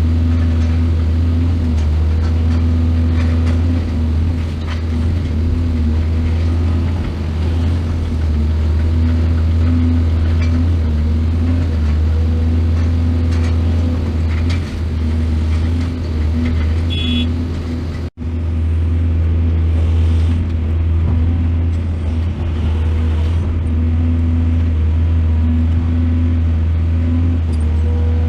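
Excavator engine running steadily with a deep, continuous hum, dropping out for an instant about 18 seconds in.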